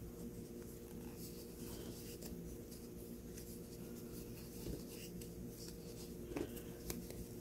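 Faint scratchy rustle of yarn drawn through stitches on a metal crochet hook as single crochet stitches are worked, with a few soft ticks near the end. A steady low hum runs underneath.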